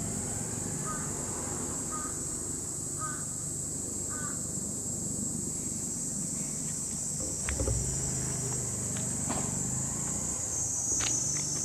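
Outdoor ambience: a steady high insect drone, with four short distant bird calls about a second apart in the first few seconds. A soft low thump comes about halfway, and a few sharp clicks come near the end.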